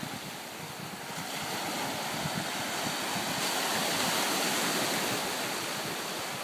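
Ocean surf breaking and washing up the beach, swelling a little louder midway, with some wind on the microphone.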